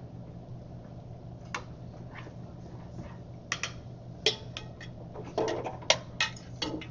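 Metal pots, pans and utensils knocking and clinking: a few scattered light clicks, then a quicker run of knocks in the last three seconds. A steady low hum runs underneath.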